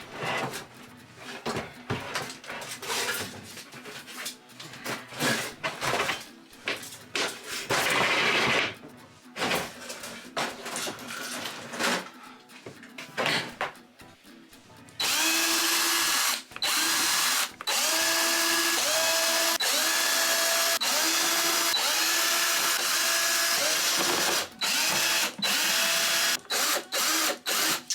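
Scattered knocks and clicks of hand work on the caravan, then about halfway in a power drill starts running in repeated bursts, its motor pitch rising each time it spins up.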